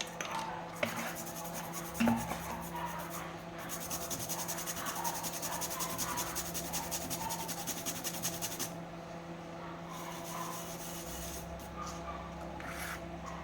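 Rapid, even scraping strokes for about five seconds in the middle, with a few scattered knocks, over a steady low electrical hum.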